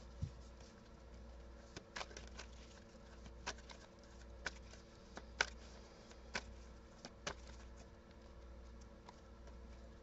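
Tarot deck being shuffled by hand: soft, irregular card slaps and taps, roughly one a second, over a low steady hum.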